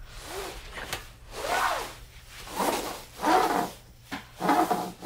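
Flat fabric chafe-guard hose rubbing and scraping as it is worked along by hand, in a series of strokes about one a second that grow louder toward the end.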